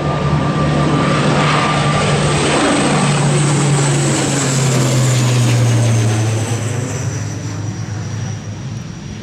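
ATR turboprop airliner passing close by: a low propeller drone with a high turbine whine, both dropping in pitch as it goes past. It is loudest about five to six seconds in, then fades.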